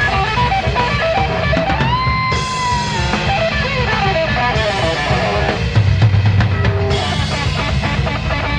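Jazz-rock fusion band playing live: fast, dense lead lines over busy drums and electric bass. About two seconds in, one note is bent up and held for roughly a second before the fast runs resume.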